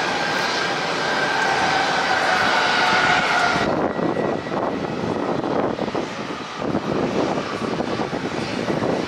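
Airbus A380 on final approach: its four jet engines run with a loud roar and a steady high whine that falls slightly in pitch. Nearly four seconds in the whine cuts off suddenly, leaving an uneven rumbling roar.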